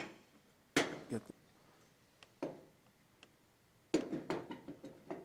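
Gas cooktop burner parts being set into place by hand: a few separate light clicks and knocks, then a quick run of them near the end.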